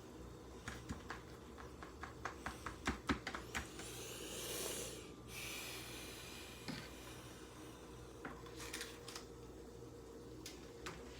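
Kitchen handling noises as sour cream is added onto tortilla wraps: a quick run of light clicks and taps, then a short rustling swish about four seconds in that stops suddenly, followed by fainter scattered taps.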